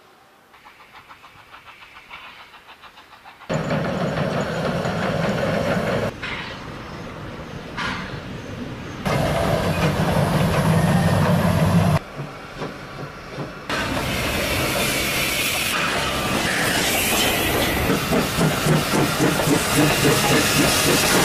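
Steam locomotives hauling a passenger train: exhaust chuffing, steam hissing and wheels clacking over rail joints. The sound comes in several short takes that start and stop abruptly. It opens faint with a soft pulsing and turns loud after a few seconds.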